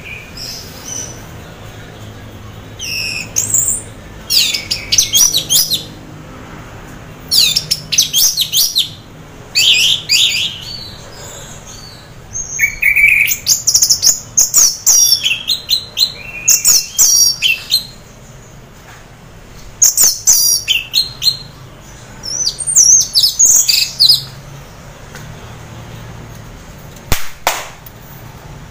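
Orange-headed thrush singing in about six spells of rapid, high, varied phrases separated by short pauses. It is a caged bird the keeper calls half in breeding condition, singing steadily. A single sharp click comes near the end.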